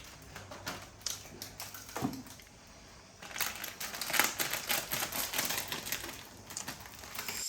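Light, irregular clicking and tapping, busier from about three seconds in.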